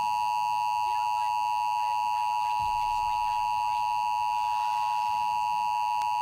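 Emergency Alert System attention signal: a steady two-tone alert tone, 853 Hz and 960 Hz sounded together, held unbroken and loud.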